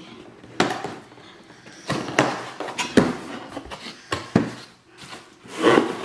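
Unboxing handling sounds: paper and plastic packaging rustling, with several sharp knocks and clatters as parts are taken out of the box. The loudest, longest rustle comes near the end.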